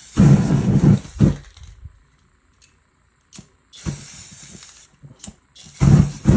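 Bursts of a flame jet fanned over wet spray paint to dry it: three hissing rushes, the first and last loud with a deep roar of burning, the middle one a lighter hiss.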